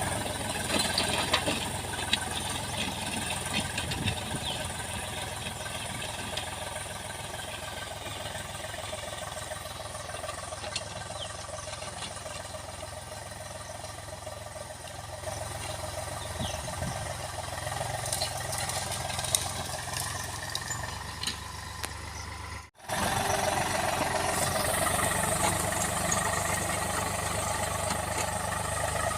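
A small engine running steadily, with a brief break about 23 seconds in, after which it is a little louder.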